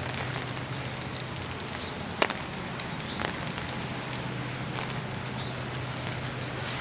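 Heavy rain falling, a dense crackling patter with scattered sharper drip clicks close by, over a steady low hum.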